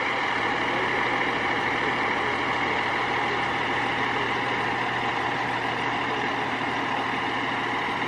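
Fire department ladder truck's diesel engine idling steadily, a low even hum under a constant hiss.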